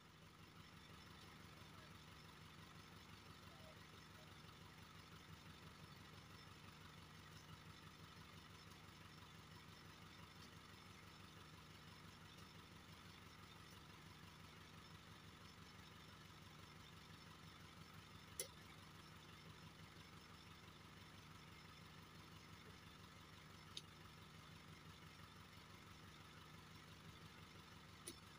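Faint, steady hum of an idling engine, with three brief sharp clicks in the second half.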